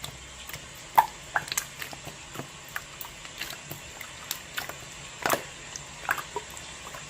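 Slime being squeezed and pressed by hand, giving irregular wet clicks and pops, the loudest about a second in and again after five seconds.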